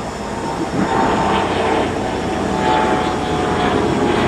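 Jet airliner flying overhead: a steady rushing engine noise with whining tones, growing louder about a second in.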